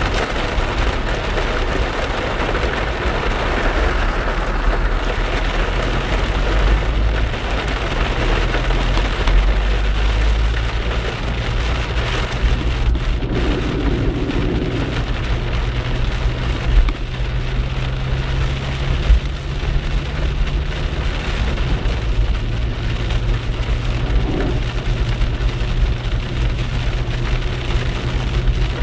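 Heavy rain on a moving car's roof and windscreen and tyres on the flooded road, heard from inside the car over a steady low engine and road rumble.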